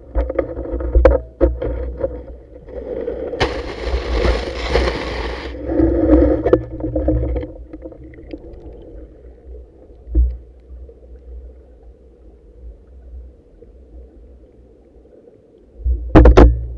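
Underwater sound picked up by a camera on a speargun: a low rumble of water moving past the gun, with scattered knocks from handling. About three seconds in there is a burst of hissing lasting about two seconds, and loud knocks come near the end.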